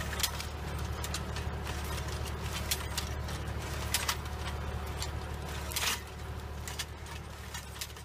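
Tractor engine running steadily while a tractor-mounted sensor-arm disc hoe cuts through the soil, with irregular sharp metallic clicks and clatters from the implement.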